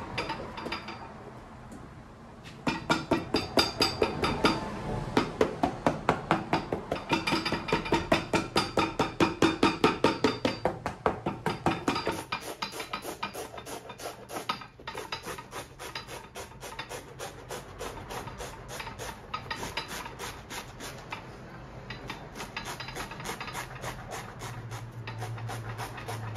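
Rapid back-and-forth scraping strokes of hand abrading across the sole of an Irish Setter boot, about four strokes a second. The strokes are loud for the first several seconds and turn lighter about halfway through.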